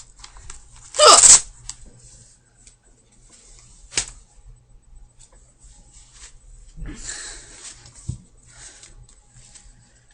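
A girl's hiccup about a second in: a short, loud, voiced 'hic', the loudest sound. A fainter sharp click follows about four seconds in, then rustling and a soft thump near the end.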